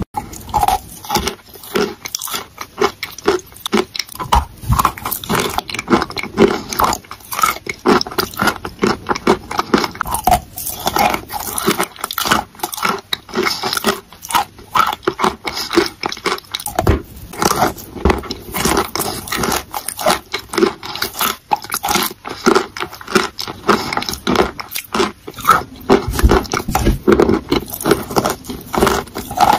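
Chalk being bitten and chewed close to the microphone: a dense, steady run of quick crackly crunches and mouth clicks.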